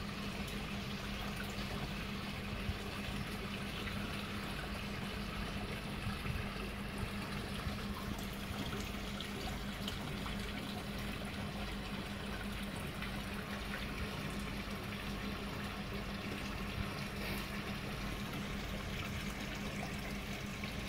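Steady trickling, running water with a constant low hum underneath.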